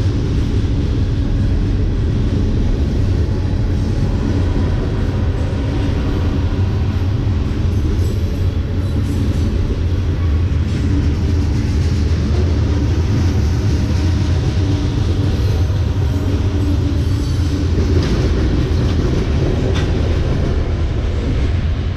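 Freight train of tank cars and covered hoppers rolling past close by, a steady loud rumble of steel wheels on the rails.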